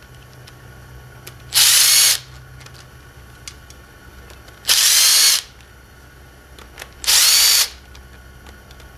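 Power drill run in three short bursts of about half a second each, spinning out the oil pump's mounting bolts on a Subaru EJ engine.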